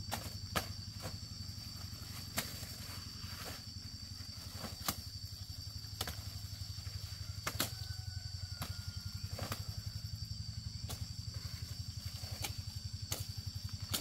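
A small engine running steadily with a fast, even low pulse, with a steady high whine and scattered sharp clicks or knocks.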